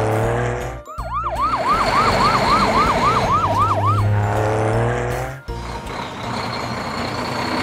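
Cartoon siren sound effect: a fast wailing yelp of about three rises and falls a second, lasting about three seconds from about a second in, over background music.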